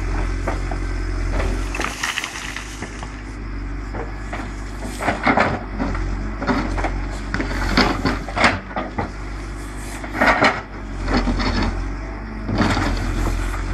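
Volvo BM EL70 backhoe loader's diesel engine running steadily while its bucket digs, with repeated knocks and scrapes of earth and stones against the steel.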